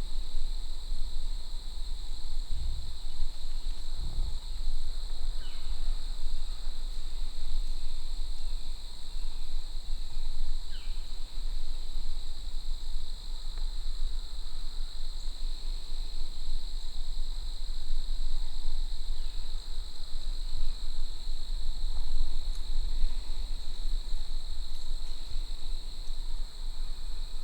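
Steady chorus of crickets and other insects, an even high-pitched drone, over a low rumble, with a few faint short chirps.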